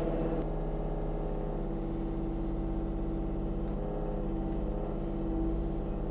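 Kubota U35-4 mini excavator's diesel engine running steadily under hydraulic load as the boom and bucket work, heard from the operator's seat.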